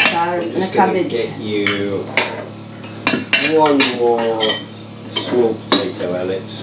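Cutlery clinking and scraping against plates and serving dishes as a meal is served out at the table: a string of sharp clinks at uneven intervals.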